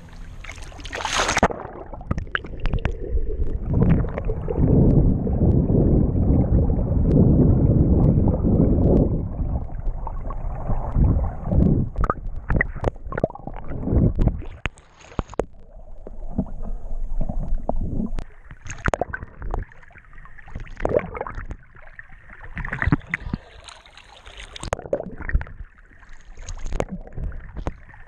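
Muffled water sounds from a camera held underwater while snorkelling: a low rumbling churn of moving water, then gurgling with scattered clicks and knocks as the camera moves near the surface.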